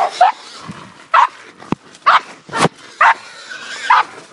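Hunting dog barking in short, sharp barks about once a second, with a couple of brief sharp knocks between the barks.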